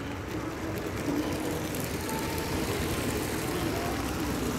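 Three coupled LEGO model trains running past on plastic track: a steady rolling rumble and motor hum, over the chatter of a crowd in a large hall.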